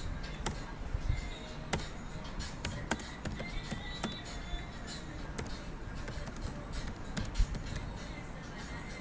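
Computer keyboard keys clicking irregularly as text is typed, over background music.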